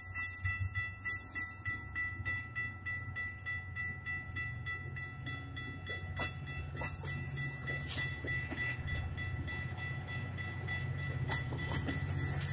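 Metra bilevel commuter train rolling past as it leaves the station, its wheels clicking rapidly and evenly over the rail joints, with a steady high tone throughout. A low diesel rumble grows in the second half as the locomotive pushing at the rear draws near.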